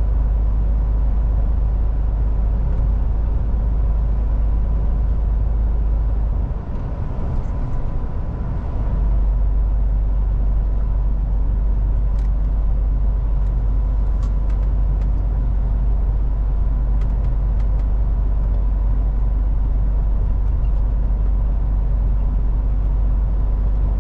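A MAN TGX semi truck under way: a steady deep rumble of engine and road, which dips briefly about seven seconds in. A few faint ticks come midway.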